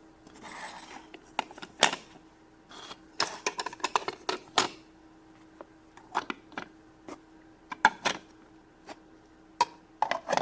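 Small plastic toys being handled and knocked together: irregular light clicks and clacks, some in quick clusters, with a brief rustle about half a second in.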